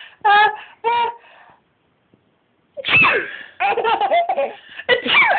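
High-pitched laughter: two short bursts near the start, a pause of about a second, then continuous giggling from about three seconds in.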